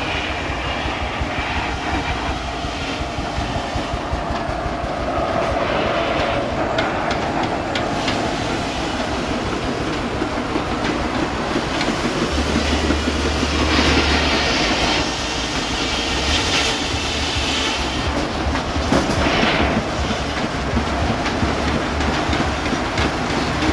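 Steam-powered sawmill running, a steady mechanical clatter. It grows louder and higher-pitched a little past halfway and again briefly near the end.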